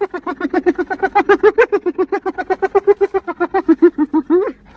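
An animal giving a fast, unbroken run of short pitched calls, about nine a second, with a brief break near the end.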